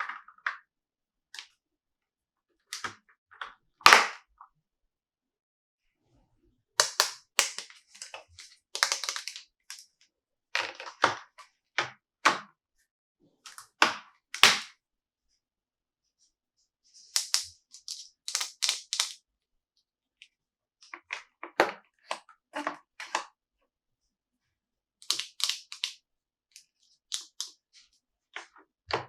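Hands handling a plastic toy car and its packaging: scattered groups of sharp clicks and taps, separated by silent pauses. The loudest single click comes about four seconds in.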